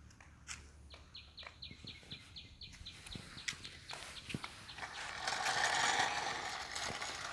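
Child's electric ride-on toy car: a quick run of light ticks for a couple of seconds, then its motor and wheels whirring steadily for the last two seconds or so as it drives off.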